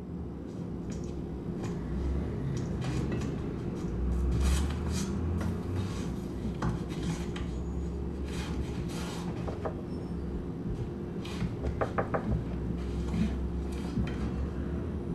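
Dishes and cutlery clinking and knocking over a steady low hum, with a quick run of taps near the end.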